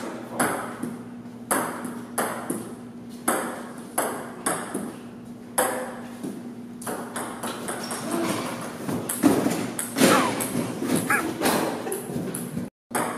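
Ping-pong ball in a rally played with couch cushions instead of paddles: sharp ball clicks on the table-tennis table about one to two a second, with softer hits as the cushions bat it back, over a steady low hum.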